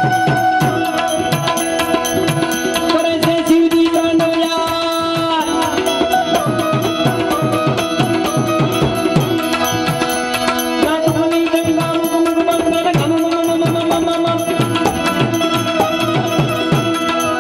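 Instrumental folk devotional music. A harmonium holds steady sustained notes while a tabla plays a quick rhythm, its bass drum strokes bending in pitch. Small hand cymbals clink throughout.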